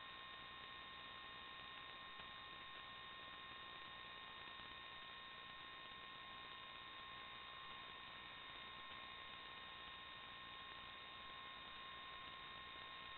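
Near silence: a faint, steady electronic hiss with a constant hum and a few thin whine tones that never change pitch. This is recording noise, not the quadcopter's motors.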